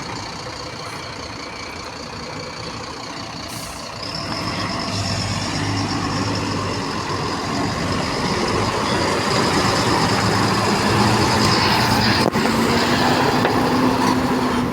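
Heavy truck engine running and drawing nearer, growing steadily louder from about four seconds in.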